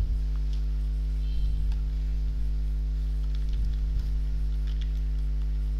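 Steady electrical mains hum on the recording, with a few faint keyboard clicks as a file name is typed.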